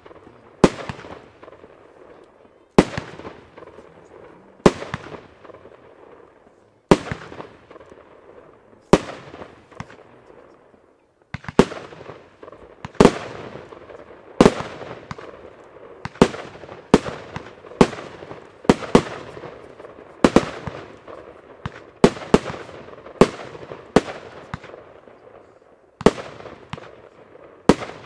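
Compound fireworks cake (Blackboxx Pyro Spektakel Level 8) firing a long sequence of shots, about twenty sharp bangs, each trailing off over a second or so. They come about two seconds apart at first and follow each other faster from the middle on.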